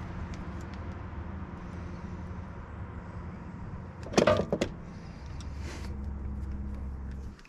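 Riding mower's small gasoline engine running steadily, with a brief loud clatter about halfway through, then cutting out abruptly near the end as it is shut off by a makeshift kill switch grounding the ignition coil.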